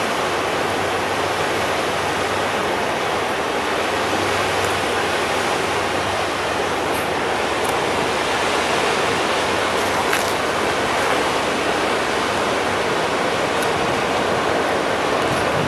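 Steady rushing of river water and the wash of a passing inland tanker, at an even level with no distinct events.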